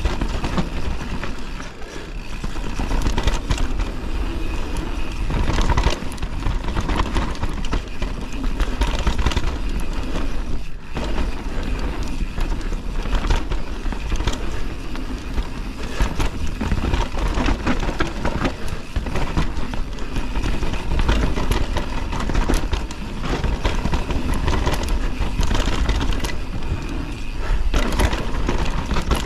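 Canyon Torque Mullet CF8 mountain bike descending a dirt trail at speed: tyres rolling over dirt and stones, with frequent clicks and rattles from the chain and bike, under heavy wind rumble on the action camera's microphone.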